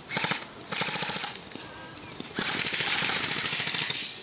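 Two short full-auto bursts from airsoft guns, each about half a second of rapid, evenly spaced shots, in the first second and a half. A loud, even rushing hiss follows for about a second and a half.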